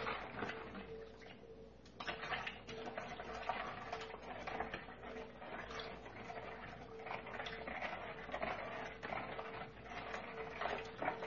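A spoon stirring undissolved salts in water in a plastic mixing bowl: a continuous, irregular gritty scraping and clicking that starts about two seconds in.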